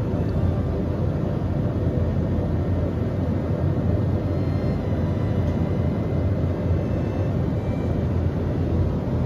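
A steady low rumble, unbroken, with a faint even hum above it.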